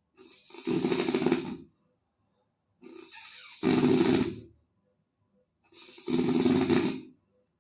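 Loud, rasping snoring: three snores, each about a second and a half long, starting softer and swelling, coming about every two and a half seconds.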